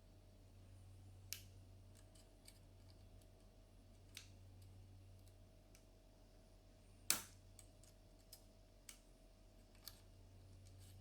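Lishi 2-in-1 HU66 pick-decoder being worked inside a VW Touareg door lock to close it: faint, scattered metallic clicks, the sharpest about seven seconds in, over a low steady hum.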